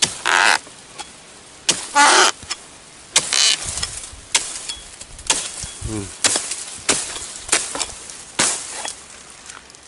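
Pole-mounted oil palm harvesting chisel striking repeatedly into the base of a palm frond to cut it away: sharp chopping strokes with leaf rustle, the first few longer and hissier, then about one stroke a second.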